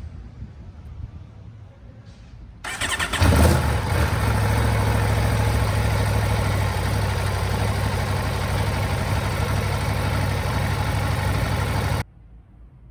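Aprilia motorcycle engine cranked on its starter, catching almost at once about three seconds in and then idling steadily, until it cuts off suddenly near the end.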